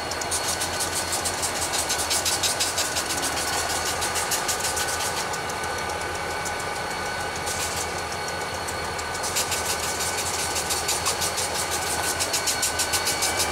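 Diesel freight locomotives of a train in motion, the engines running with a fast, even clatter over a steady whine.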